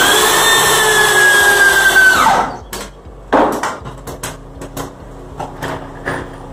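Power drill driving a long structural screw into a wooden ledger board: the motor runs with a steady whine under load, then winds down and stops about two seconds in. A run of small clicks and knocks follows.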